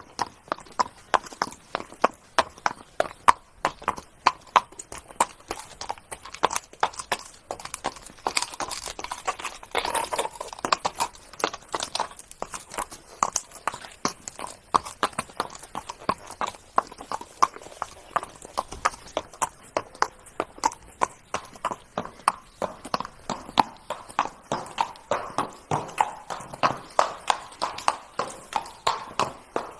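Horse's hooves trotting: a steady, even rhythm of sharp hoofbeats.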